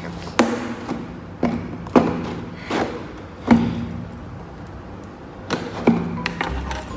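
A gift package being opened by hand: a string of about eight irregular knocks and thuds, each with a short low ring, as the box is handled.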